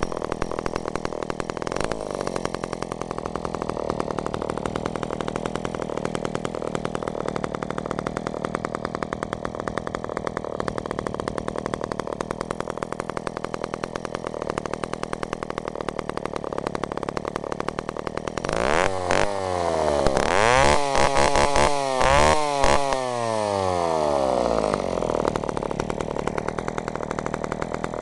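The two-stroke engine of a John Deere 30 chainsaw (a rebadged Echo CS-302) idles steadily. About two-thirds of the way in it is revved several times, the pitch sweeping up and down with each blip of the throttle, then drops back to a steady idle. It runs cleanly, as a sound, healthy engine should.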